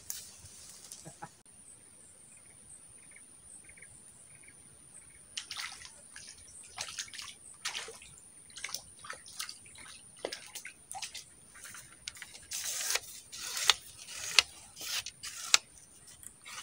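A small hooked fish thrashing at the water's surface: a quiet start, then from about five seconds in a run of short, sharp splashes, strongest near the end.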